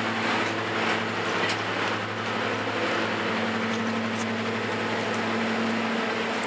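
Class 55 Deltic diesel locomotive's twin Napier Deltic two-stroke engines running with a steady, even drone as the locomotive pulls away.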